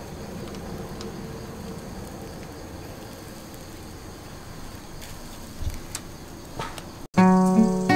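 A steady soft hiss with a few faint crackles and taps from fish roasting on a wire rack over charcoal embers. About seven seconds in, strummed acoustic guitar music cuts in abruptly and becomes the loudest sound.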